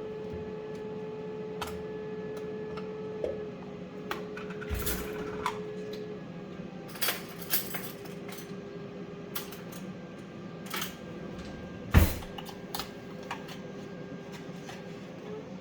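A spoon clinking and scraping against a jar and a bowl as pesto is scooped onto pasta: scattered light clicks, with one louder knock about 12 seconds in. A steady air fryer hum runs under it.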